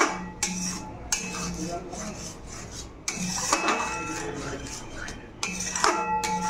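A flat metal spatula scrapes and knocks against an aluminium kadai while stirring a thick spice paste and yogurt. The strokes come irregularly, and the pan rings faintly after the harder knocks.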